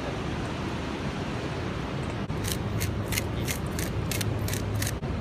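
A handheld spice mill being twisted: about nine short grinding clicks, roughly three a second, starting about halfway through, over steady outdoor wind noise.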